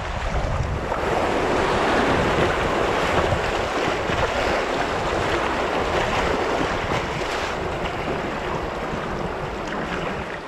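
Rushing whitewater of a river rapid around a canoe, with wind buffeting the microphone. The rush of water is loudest in the first half and eases toward the end as the water calms.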